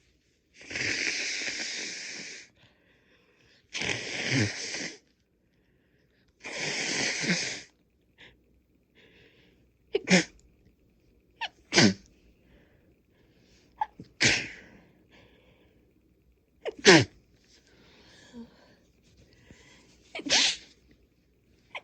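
Three congested nose blows, each lasting one to two seconds, then five sharp sneezes a few seconds apart, each dropping in pitch.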